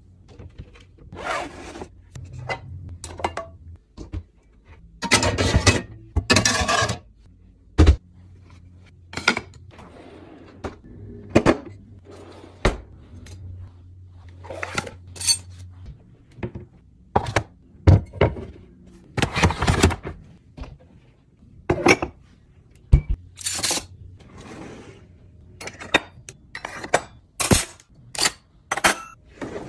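Kitchenware being handled and put away: irregular knocks, clinks and clatters of pans, a tumbler and metal cutlery, with a longer rattling stretch about five to seven seconds in. Near the end, metal spoons and forks clink into a wooden cutlery tray.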